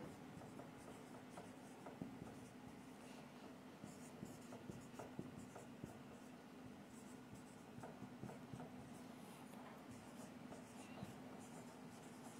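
Faint scratching and squeaking of a marker writing words on a whiteboard, in short uneven strokes, over a steady low hum.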